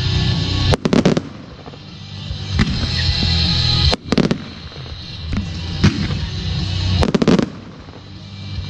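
Fireworks shells bursting with sharp bangs: a quick cluster about a second in, a single loud report near four seconds and another cluster around seven seconds, with a few lighter pops between. The show's music plays underneath throughout.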